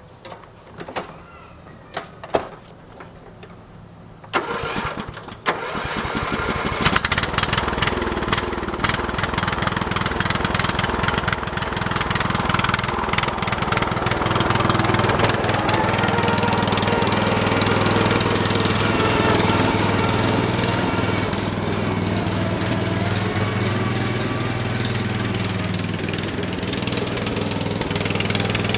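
A few knocks, then the Briggs & Stratton 13 hp OHV single-cylinder engine of a riding lawn tractor cranks briefly about four seconds in, catches, and runs steadily with small changes in speed. The owner suspects water in the carburetor float bowl.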